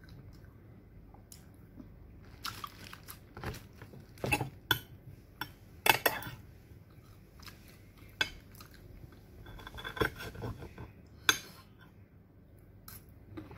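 Metal spoon clinking and scraping against a glass dish while eating, in scattered irregular clicks, the loudest about six seconds in.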